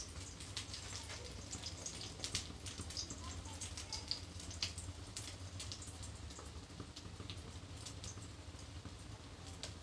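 Egg-dipped bread slice frying in oil in a pan: scattered crackles and pops of spitting oil over a low steady hum.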